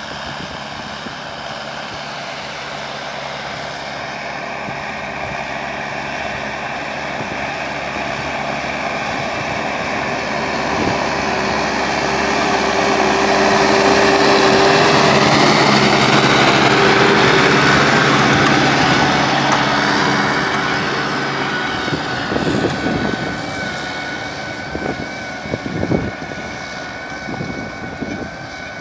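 Deutz-Fahr Agrofarm 115 tractor's diesel engine running steadily under load while pulling a plough. It grows louder as the tractor comes close about halfway through, then fades as it pulls away. A thin steady whine holds in the last several seconds.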